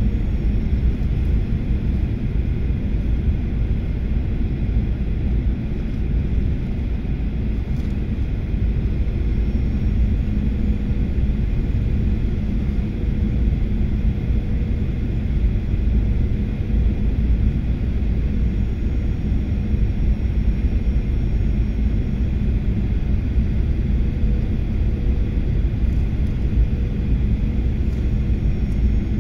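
Steady cabin noise inside an airliner in flight: engine and airflow noise, mostly low-pitched, with a faint steady hum over it.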